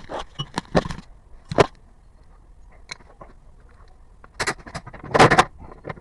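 Irregular clunks and short squeaks from a Hyundai Grandeur HG, the front and rear noise the car is being checked for. A cluster comes in the first second, a single louder knock follows shortly after, and a louder group comes near the end.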